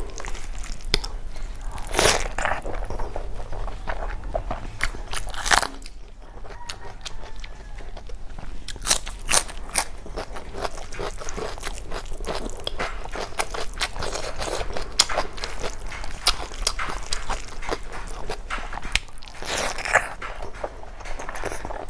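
Close-miked eating sounds: wet chewing and lip smacking on mouthfuls of rice mixed with snail curry, eaten by hand, with many short sharp clicks and smacks.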